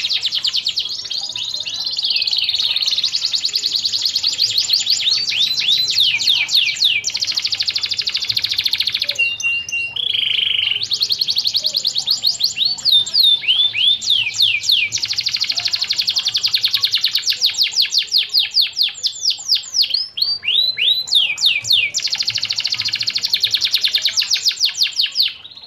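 Domestic canary singing a long, high song of fast trills and rolls with quick downward-sweeping notes. About ten seconds in it breaks off briefly for a short steady note, then resumes. The song stops just before the end.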